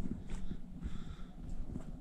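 Footsteps of a hiker walking on a dirt forest trail: a few soft thuds over a low rumble.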